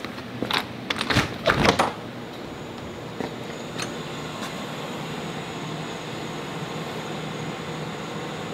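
A few footsteps and knocks as a door is opened, the loudest sounds, in the first two seconds. Then a steady mechanical hum with a faint hiss.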